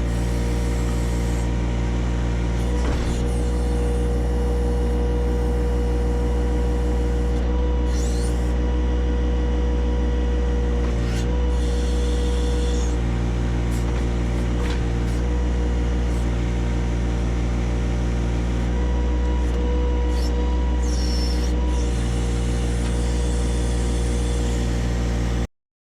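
John Deere 1025R compact tractor's three-cylinder diesel engine running steadily under work, with a few faint knocks. The sound cuts off abruptly near the end.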